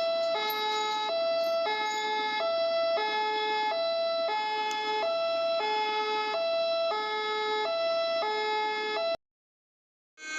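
Electronic two-tone siren sound effect, alternating hi-lo between two pitches about every 0.7 seconds, cutting off abruptly about nine seconds in.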